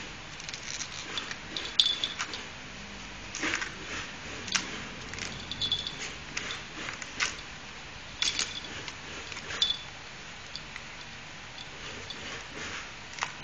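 A dachshund tearing at a coconut with its teeth, stripping the husk: irregular scrapes and clicks, a few to each second, some sharper than others.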